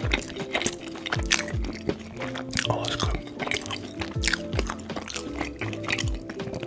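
Background music with deep bass thumps and held tones, over close-miked wet eating sounds: food dipped in thick sauce, squelching and being chewed with sharp smacks and clicks.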